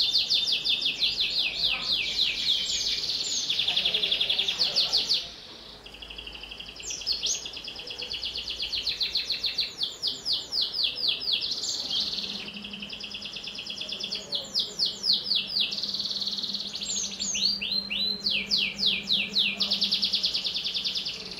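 Domestic canary singing a long, loud song of fast rolling trills and quick downward-sweeping notes, broken by a short pause about five seconds in.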